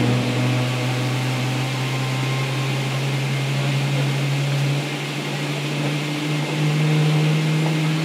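Boeing 777-300ER's GE90 turbofan starting, heard from inside the cabin: a steady low hum that steps up in pitch about six and a half seconds in as the engine spools up.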